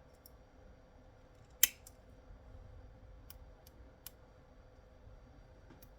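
Small plastic and circuit-board parts of a radio-control handset being handled, giving a few sharp clicks, with one louder snap about one and a half seconds in.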